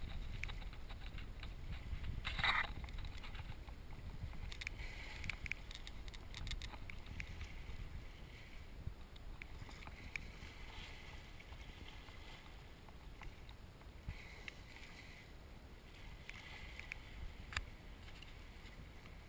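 Small waves lapping and splashing against the hull of a drifting boat, over a low rumble of wind on the microphone. One short, louder splash comes about two and a half seconds in, and faint scattered clicks and trickles of water follow.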